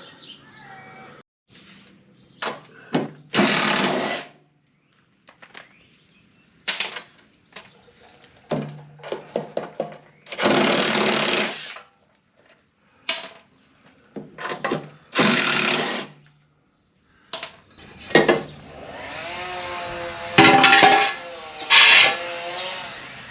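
Clanks, clicks and short scraping rubs from hands working a lawn tractor mower deck's drive belt, pulleys and tensioner, with several scrapes about a second long.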